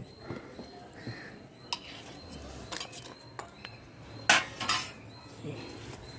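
A steel ladle clinking and scraping on a small charcoal stove, and cooking oil squirted from a plastic bottle into the hot ladle, which gives a few short hissing bursts about four seconds in.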